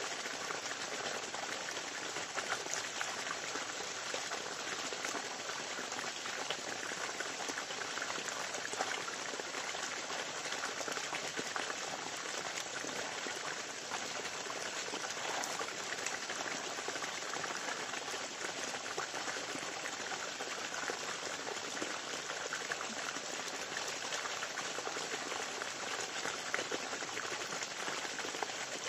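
Smouldering campfire embers crackling and hissing steadily.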